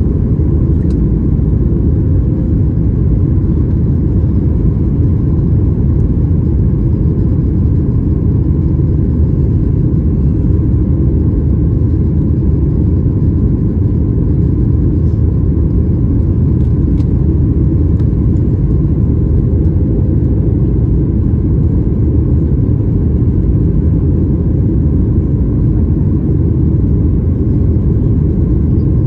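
Cabin noise of a flydubai Boeing 737 at takeoff power, heard from a window seat over the wing: a steady low rumble of the engines and rushing air through the takeoff roll, liftoff and climb, with a faint steady whine above it.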